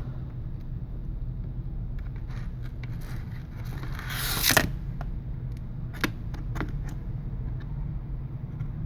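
Light handling noise of an iPad mini 3's screen being seated into its chassis: a brief scrape that swells and stops about four and a half seconds in, then a couple of small sharp clicks, over a steady low hum.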